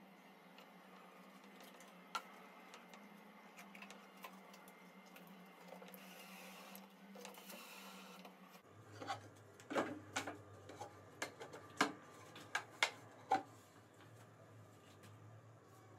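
Faint workshop handling sounds: after a quiet stretch, a run of about ten light clicks and knocks of wood and tools on a workbench, irregularly spaced, starting about nine seconds in and stopping about four seconds later.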